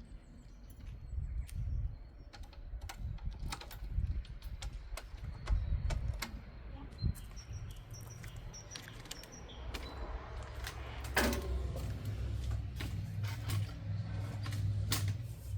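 Household sewing machine running in stretches, a steady low motor hum with quick clicks and knocks of the mechanism and handling. Faint bird chirps are heard over it.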